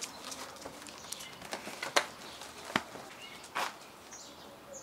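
Quiet backyard ambience with birds chirping faintly near the end, broken by a few short sharp clicks or taps about two, two and three-quarter, and three and a half seconds in.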